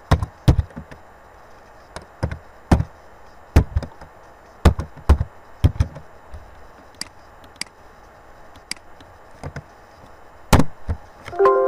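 Typing on a computer keyboard: over a dozen irregular key strikes, each a sharp click with a dull thump, some in quick runs and some a second or more apart.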